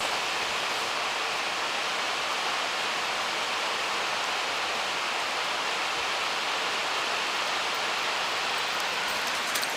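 Steady rush of the fast-flowing River Kent, an even hiss of moving water that holds level without breaks.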